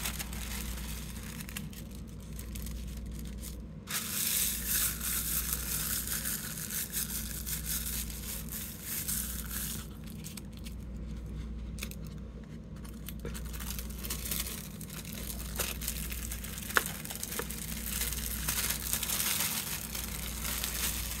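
Thin artist tissue paper rustling and crinkling as hands press and rub it down over an inked gel printing plate with vines beneath it, then lift it away near the end.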